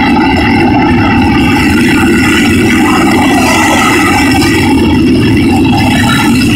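AV-8 Harrier jump jet's Pegasus turbofan running loud and steady as the jet hovers low, a deep roar with a high whine over it.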